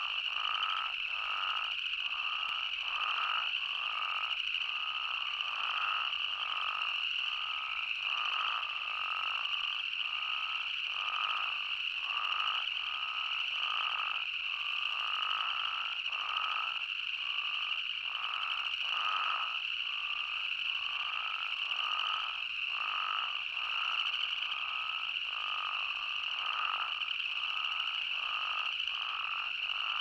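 A chorus of spadefoot toads, with short calls repeating and overlapping about one or two a second over a continuous high-pitched steady drone.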